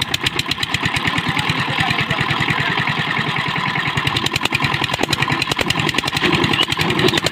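Single-cylinder diesel engine of a two-wheel power tiller running steadily, with a fast, even chugging.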